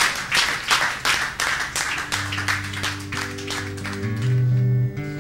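Audience clapping and applause in a small room for the first couple of seconds, giving way to sustained instrument notes from about two seconds in, held low notes stepping up in pitch.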